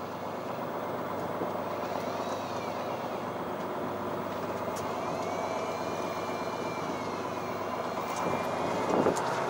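A fishing boat's engine runs steadily, a dense drone with several held tones, with a faint, wavering high whine above it. It grows a little louder near the end.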